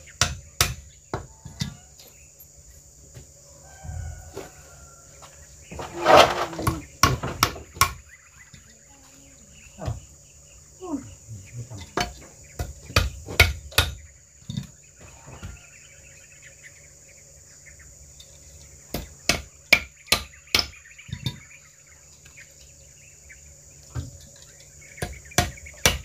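Hammer blows driving nails into wooden floor timbers, coming in clusters of quick strikes with pauses between, and a louder two-second noise about six seconds in. Insects drone steadily at a high pitch throughout.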